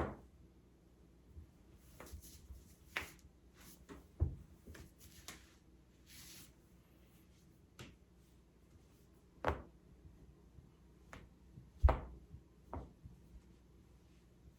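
A person cracking their own joints: a series of separate sharp pops and clicks, some louder and some faint, the loudest about twelve seconds in, with a short rustle of movement about six seconds in.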